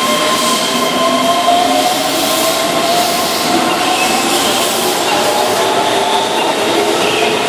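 Keihan 13000-series electric train pulling away from a station, its traction motors whining and rising slowly in pitch as it gathers speed, over steady wheel-and-rail noise.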